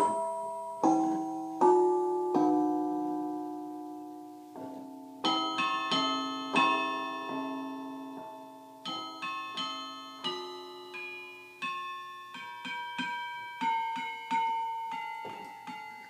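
Digital keyboard played slowly, single notes and a few chords, each struck and left to ring and fade. The notes come more often in the second half.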